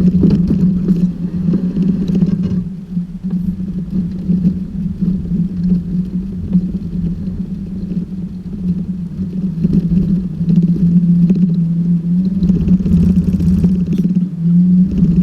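Toyota Tacoma pickup's engine droning at a nearly constant pitch while the truck drives, over a low, uneven rumble.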